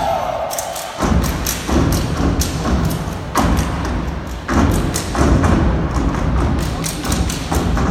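Step team stepping in unison: heavy foot stomps and sharp hand claps and slaps in a fast rhythm on the stage. The low stomps come in about a second in after a short lighter stretch of claps.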